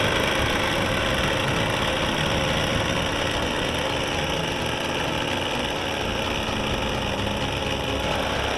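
Model aerobatic plane's engine running steadily on the ground, ticking over before take-off.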